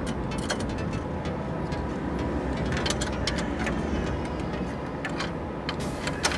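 Scattered light clicks and knocks of plastic photocopier parts being handled, over a steady low hum.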